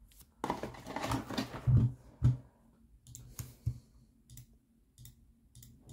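Typing on a mechanical computer keyboard: a quick run of clicky keystrokes, then a few scattered single clicks.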